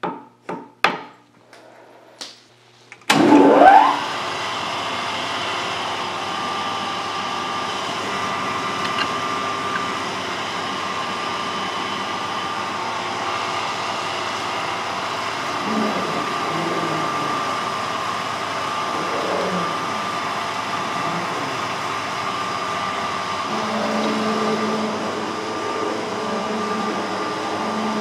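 A few sharp metal clicks, then about three seconds in the metal shaper's electric motor is switched on and spins up with a rising whine, settling into a steady running drone with a constant whine from its drive.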